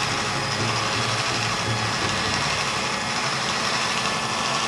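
Electric hand mixer running steadily, its beaters mixing cream into a cream-cheese cheesecake filling.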